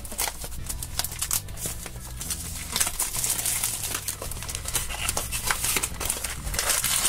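Thin plastic wrap crinkling and crackling as it is peeled off a small cardboard toy box, a dense run of crackles and small clicks, with the cardboard flap pulled open later on.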